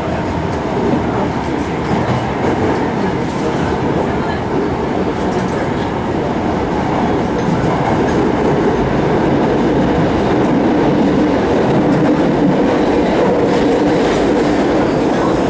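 Steady running noise of an Osaka Municipal Subway Sakaisuji Line 66 series train, heard from inside the car as it travels through the tunnel. The noise grows a little louder in the second half.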